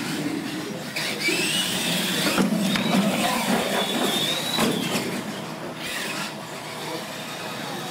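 Electric R/C monster trucks racing: a high motor-and-gear whine rises and falls as they accelerate and ease off. Several knocks and clatters of tyres and chassis hitting the ramps and the concrete floor are heard.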